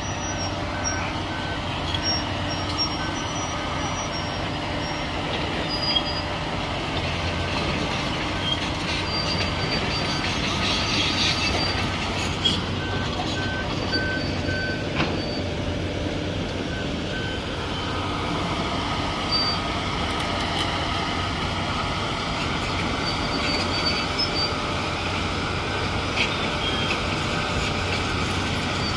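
Track maintenance machine running steadily on the rails, with short high-pitched beeps now and then.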